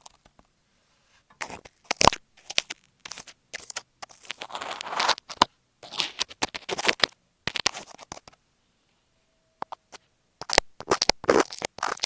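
Masking tape stuck over an Apple EarPods microphone being rubbed and scratched right at the mic: irregular bursts of scratching with short silent gaps, and a longer pause about two-thirds of the way through.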